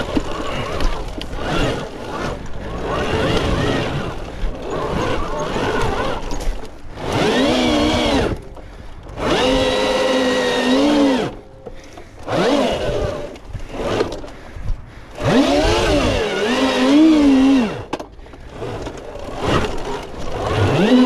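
Electric off-road motorcycle's motor whining in repeated bursts, its pitch rising and falling with the throttle on a steep rocky climb, over a constant rough noise of tyres on dirt and rock.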